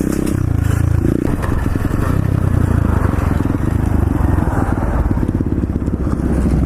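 Pit bike engine running steadily as the bike rides along, a loud low drone made of fast even firing pulses.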